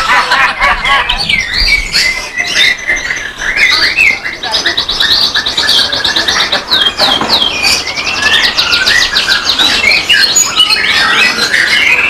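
Several caged songbirds singing at once, with overlapping chirps and whistled phrases. A fast, rapidly repeated trill runs through the middle.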